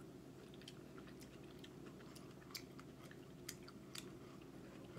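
Faint close-up mouth sounds of chewing soft fruit: scattered small wet clicks and smacks over a low steady hum.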